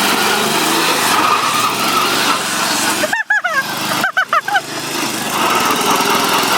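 Riding lawn mower engine running loud and flat out. Two short high-pitched cries break through it about three and four seconds in.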